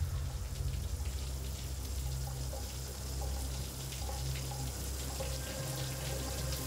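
Shower water running steadily.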